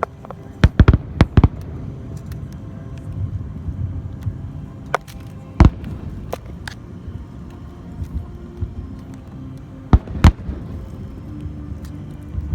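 Fireworks shells bursting: a quick run of four loud bangs about a second in, a single bang near the middle, and two more close together near the end, over a steady low rumble.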